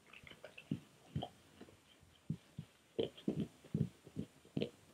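Eurasian brown bear chewing and crunching food at close range: an irregular run of dull thuds and crunches that comes thicker and louder in the last two seconds.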